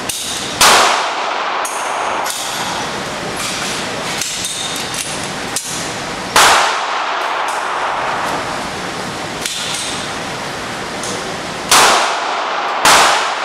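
Handgun shots at an indoor range, each sharp crack followed by a short echo off the walls: one near the start, one about halfway through, and two a second apart near the end. Fainter shots sound between them.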